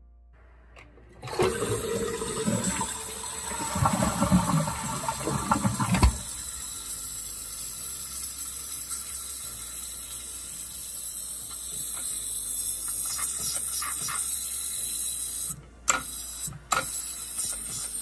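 Toilet tank water rushing out for about five seconds, then a steady hiss as the fill valve slowly refills the tank, with a couple of brief clicks near the end. The valve fills far too slowly, which the owner puts down to clogging from hard water.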